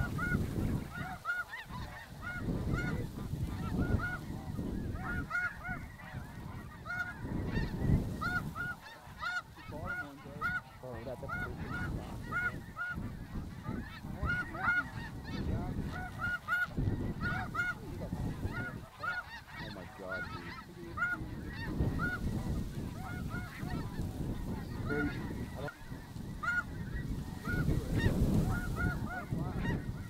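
Snow geese calling: a dense, continuous chorus of short, overlapping honks from a flock. Gusts of wind rumble on the microphone underneath, swelling and fading.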